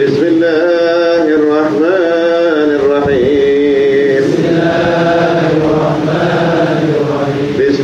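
Islamic dhikr chanting in Arabic, a slow melodic line with long held notes that rise and fall in pitch.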